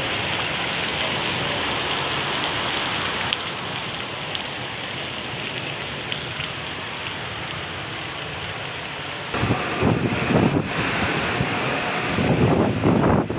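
Heavy rain pouring down onto a flooded road, a steady hiss. About nine seconds in it cuts abruptly to louder, gusting wind buffeting the microphone in a rainstorm.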